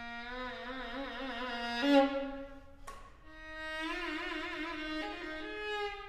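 String quartet (two violins, viola and cello) playing held notes with wide vibrato. The sound swells to a loud peak about two seconds in, gives one short sharp attack about a second later, then swells again.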